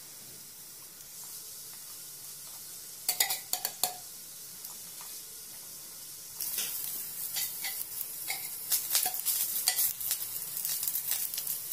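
A chicken roll frying on a hot tawa: a steady sizzle, with a few clicks and scrapes of a spatula on the pan about three seconds in. About six seconds in the sizzling gets louder and the clicks come often.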